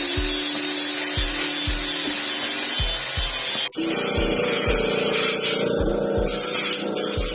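Power tool scouring a surface, a steady harsh hiss, over background music with a steady beat. The sound drops out for an instant about three and a half seconds in, then carries on.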